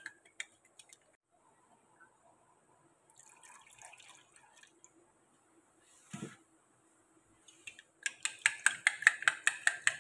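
Milk poured into a glass bowl of beaten eggs, with a brief knock about six seconds in. About two seconds before the end a metal spoon starts beating the egg-and-milk mix fast, clinking against the glass about six times a second.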